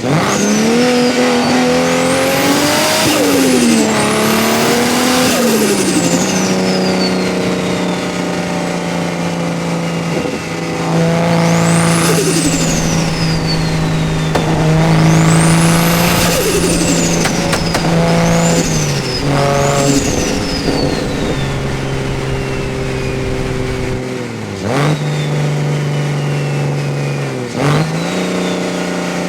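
BMW 335xi's N54 twin-turbo inline-six revving repeatedly. A high turbo whistle sweeps up and falls away several times, with turbo flutter as the throttle is lifted.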